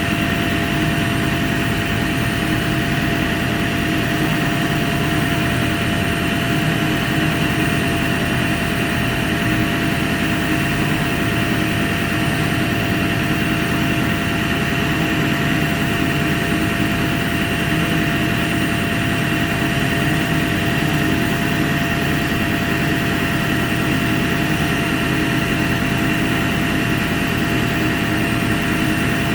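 A heavy engine running steadily at a constant pitch, with a low rumble and a few steady higher tones over it.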